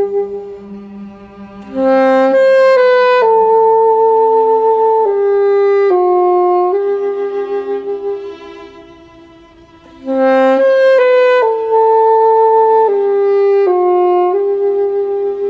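Saxophone and cello duet playing a slow melody. The saxophone plays two long phrases with a quieter pause between them, over sustained low cello notes.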